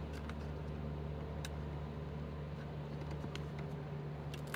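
Steady low mechanical hum, with a few faint small clicks of a plastic wiring connector being worked at by hand.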